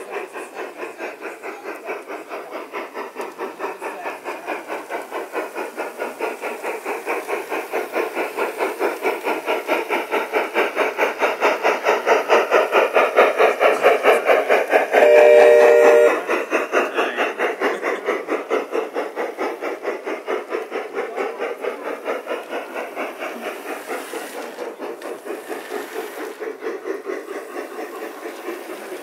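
Model steam locomotive on a garden railway, chuffing in a fast, even rhythm as the train passes: louder as it comes close and fading as it moves away. A short steam whistle blast sounds about halfway through.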